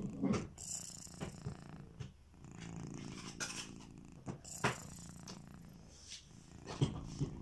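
A sleeping cat snoring: a low rumble that comes in stretches of a second or two, one to each breath. Sharp clicks and knocks come now and then over it.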